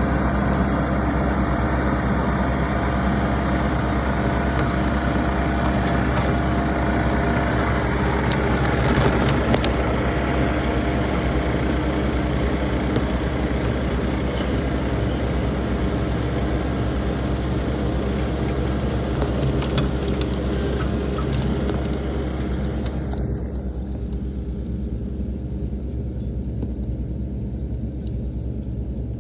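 Kubota KL58Z tractor's diesel engine running steadily while its twin mower cuts grass. About 23 seconds in, the brighter, higher part of the noise falls away and the engine's lower sound carries on.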